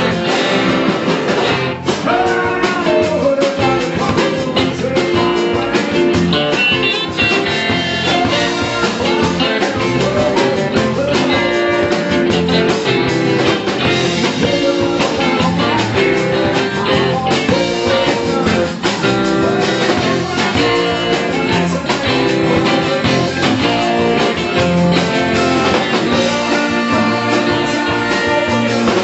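Live rock band playing loud and continuous, with several electric guitars over drums and a male lead vocal.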